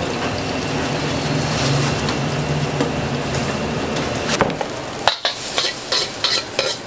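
Fried rice sizzling in a wok, then from about five seconds in a metal spatula striking and scraping the wok in quick, rapid strokes as the rice is tossed.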